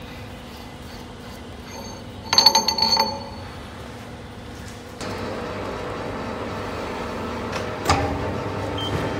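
A heavy steel nut clinking and clanking with a ringing sound as it comes off the freshly cut thread of a hydraulic cylinder rod and is set down on the lathe. From about halfway through, the lathe runs with a steady hum, with one sharp knock near the end.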